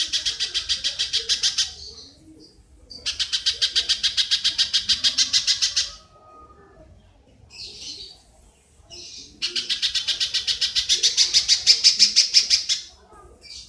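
Rapid harsh chattering call, about six notes a second, given in three bursts of roughly three seconds each, with a few faint short calls between the second and third bursts.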